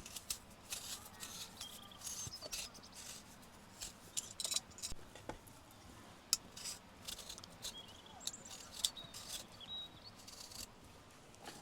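Scattered light clicks and taps of things being handled and set down on a table, with a few faint bird chirps.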